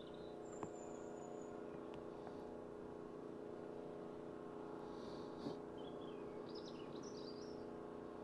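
Faint small-bird chirps and short whistled calls, one about a second in and a cluster from about five to seven seconds in, over a steady low hum, with a couple of faint ticks.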